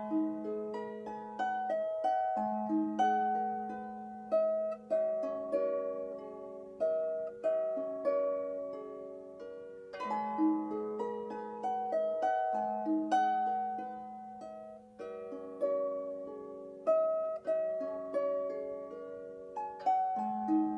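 Irish harp played by hand: plucked strings ringing out in a slow melody over repeated low bass notes.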